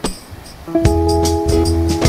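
Background music: after a struck chord and a brief lull, a held chord with a bass line and light, regular percussion ticks comes in just under a second in.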